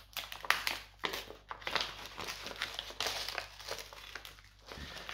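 A folded sheet of paper being unfolded and handled, crinkling and rustling in irregular bursts throughout.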